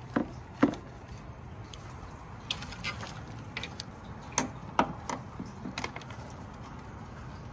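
Scattered light clicks and knocks of hands pulling and handling wiring in a pickup truck's engine bay, two sharp ones near the start and a cluster around the middle.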